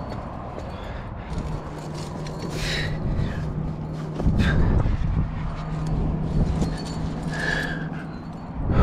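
A rock climber breathing hard on a crack pitch, with two audible exhalations, scattered small clicks and scrapes, a low rumble that swells about four seconds in, and a low steady hum through most of it.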